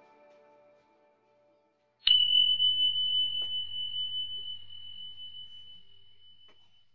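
Guitar background music fading out, then a single bright chime struck about two seconds in. It rings as one high, steady tone that slowly dies away over about five seconds.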